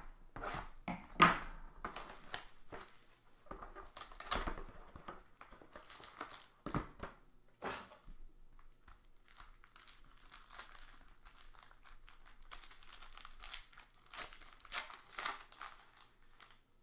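Hands opening a trading-card box: irregular knocks and scrapes of the cardboard box over the first several seconds, then a long stretch of crinkling as a shiny pack wrapper is torn open and the cards are pulled out.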